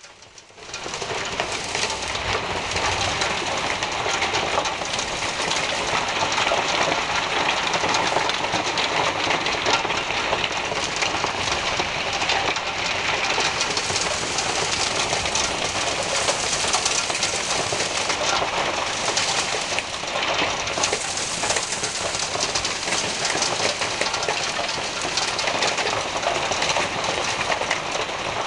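Hailstones pelting down in a heavy hailstorm: a dense, steady clatter of countless small impacts, reaching full strength within the first second.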